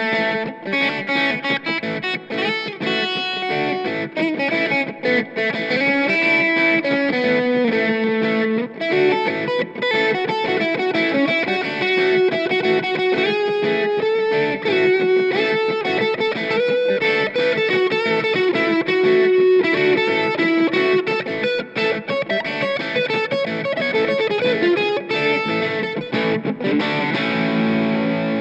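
Squier Classic Vibe Telecaster Custom electric guitar played through distortion: quickly picked single-note lead lines with a few bent or sliding notes.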